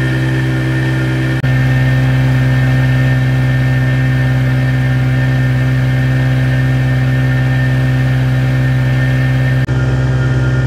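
Boat engine running steadily under load, with a strong low hum, while towing an empty barge almost up on step.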